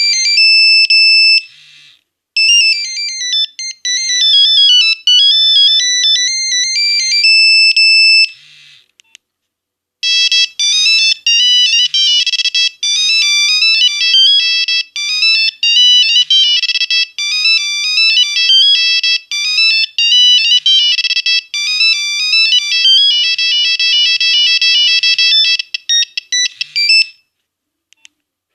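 Nokia 1101 monophonic ringtones played through the phone's speaker as melodies of beeping single notes. The first melody stops about eight seconds in, and after a short pause a second, faster tune plays until shortly before the end.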